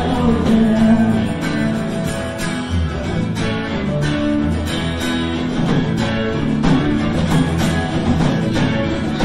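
Live band playing amplified: electric bass, electric guitar and drum kit in a steady, continuous passage.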